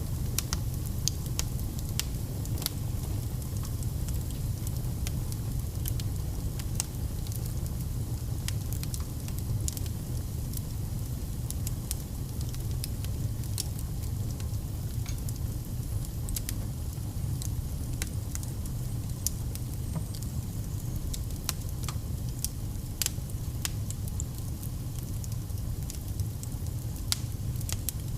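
Wood fire burning in a fireplace, crackling with frequent irregular sharp pops over a steady low rumble.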